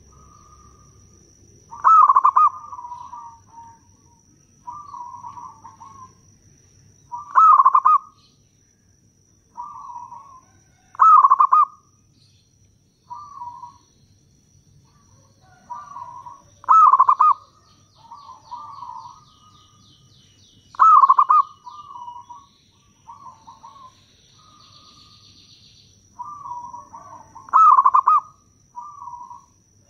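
Zebra dove (perkutut) cooing: six loud, sharp coos a few seconds apart, with softer rolling coos in between.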